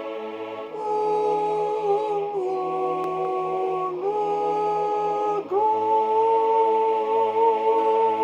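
Slow music of long held notes: a high voice, in soprano range, sustains wordless notes that step to a new pitch every second or so, over a soft low sustained accompaniment.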